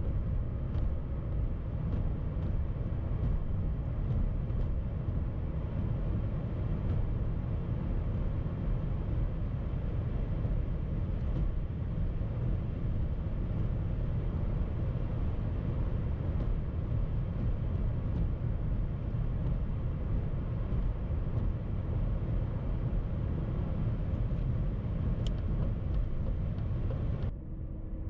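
Steady tyre-and-wind road noise of an electric-converted BMW cruising at highway speed, with no engine note; about a second before the end it cuts abruptly to a quieter, duller sound with a low steady hum.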